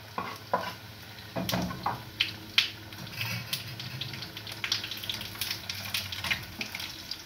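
Sausages and freshly added chopped tomatoes sizzling in a frying pan, with a metal spoon clicking and scraping against the pan as it stirs; the sharpest knock comes about two and a half seconds in.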